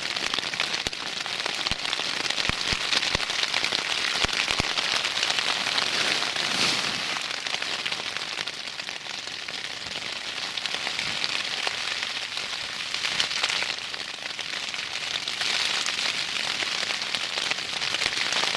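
Rain drumming steadily on a nylon tent flysheet, heard from inside the tent, with a few separate heavy drops tapping in the first few seconds.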